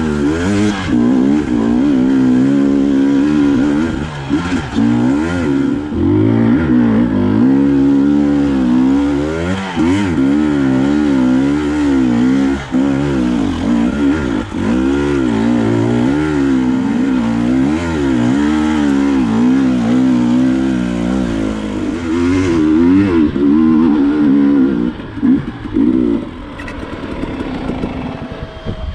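Dirt bike engine under way, its pitch rising and falling over and over as the throttle is worked on and off. Near the end it settles to a lower, quieter run.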